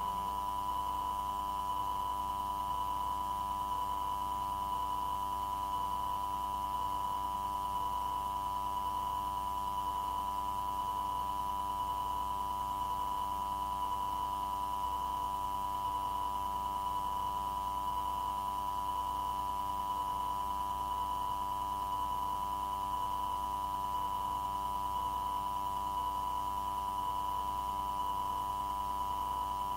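Steady electronic hum and whine on an air traffic control radio recording line with no transmission on it. A constant tone near 1 kHz is the loudest part, with a fainter higher tone and a low hum beneath. A faint pulsing repeats about one and a half times a second throughout.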